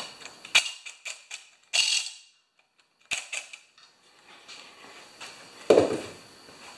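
A cordless drill-driver run in short bursts, with sharp clicks and knocks, as it backs fasteners out of a Tecumseh small engine. Near the end comes a louder dull thump.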